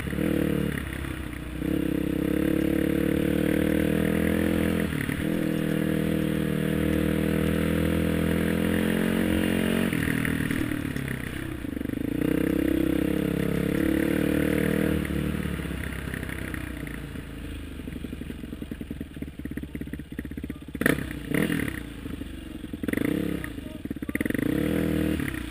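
Trail bike engine running under throttle, its note dropping briefly about 1, 5 and 10 seconds in. In the last ten seconds the engine is quieter and the bike knocks and clatters over rough, muddy ground.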